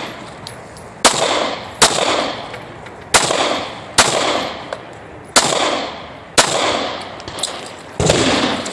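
Handgun shots fired during a practical-shooting stage: about seven sharp reports, loosely in pairs, less than a second to a second and a half apart, each trailing off in a short echo.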